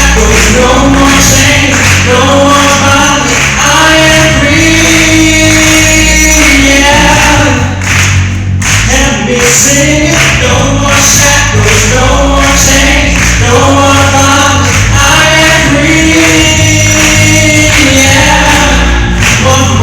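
Live gospel music: a group of voices singing together in held notes over band accompaniment with a steady bass and a beat.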